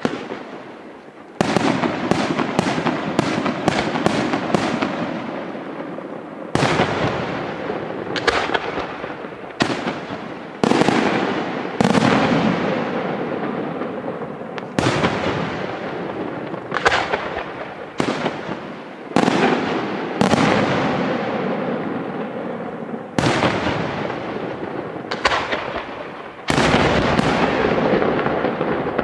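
Aerial firework shells bursting one after another in a night display. Each burst is a sharp bang followed by a noisy, crackling tail that fades over a second or two. There is a quick cluster of several bangs a couple of seconds in, then about one burst every one to two seconds.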